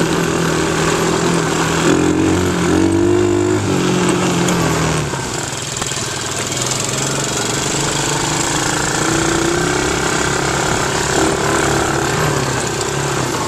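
Small ATV engines running under way, their pitch rising and falling with the throttle for the first few seconds, then settling into a steadier, lower run.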